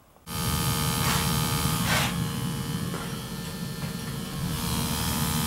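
A newly installed Peerless atmospheric gas boiler running, giving a steady hum over a low rumble. The hum cuts in suddenly just after the start. There are a couple of brief clatters about one and two seconds in.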